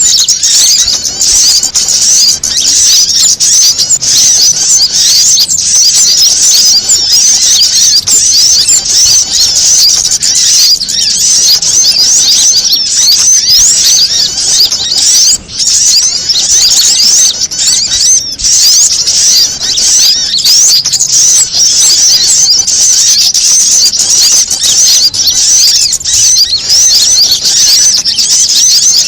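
A loud, dense chorus of small birds calling excitedly: many quick, high chirps and trills overlapping without a break. It is a bird-lure mix of agitated calls of prinias and a sunbird, meant to draw wild birds in.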